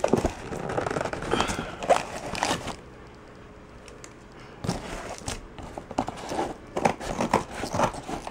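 Cardboard box being worked open by hand: the flaps scrape, rustle and crackle, with sharp clicks as the cardboard is bent. It comes in two bouts with a lull of a couple of seconds in the middle.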